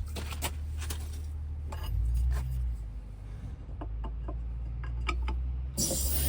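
Low steady engine hum with scattered light clicks and clinks of metal being handled, then a sudden burst of hiss near the end.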